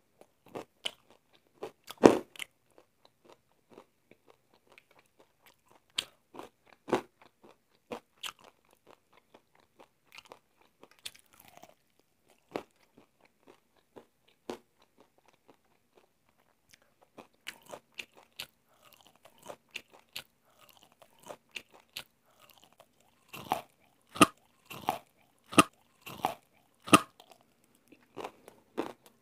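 Crisp, flour-and-starch-coated fried chicken being bitten and chewed. Scattered crunches of the fried coating are heard, with a denser run of loud crunches near the end.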